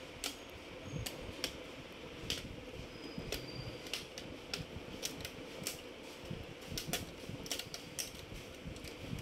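Plastic snap clips of an HP EliteBook 840's screen bezel clicking as the bezel is prised off by hand: a string of irregular sharp clicks, sometimes several a second.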